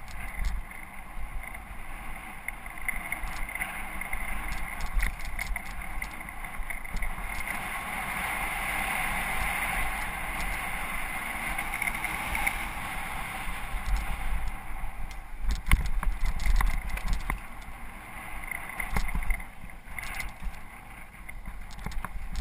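Mountain bike being ridden along a dirt and rock trail: steady tyre noise, with scattered clicks and knocks as the bike rattles over the ground, and wind rumbling on the microphone. The tyre noise swells for a few seconds around the middle.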